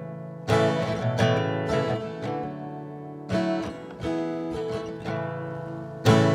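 Acoustic guitar strumming chords, each chord struck sharply and left to ring, in a slow instrumental introduction before the singing starts.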